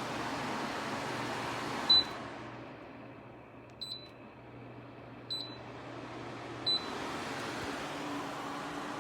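Dreo tower fan blowing, with short high beeps from its controls, four in all. After the first beep, about two seconds in, the rush of air drops to a lower speed. It rises again near the end.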